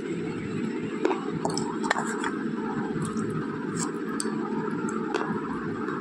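Slate pencil being crunched and chewed: scattered sharp crunching clicks, a second or so apart, over a steady low background hum.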